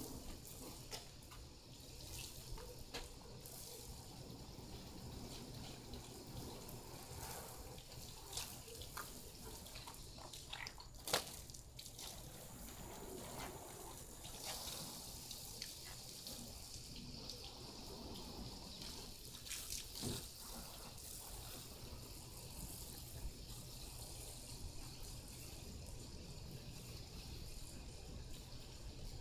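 Faint water from a garden hose running and spattering, with a few light knocks now and then.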